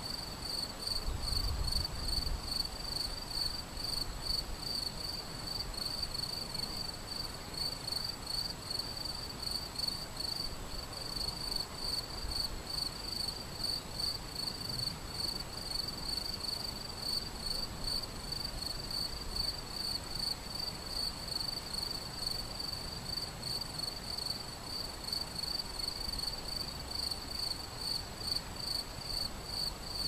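A cricket chirping steadily in a quick, even pulsing rhythm over the soft, steady rush of a shallow river running over stones.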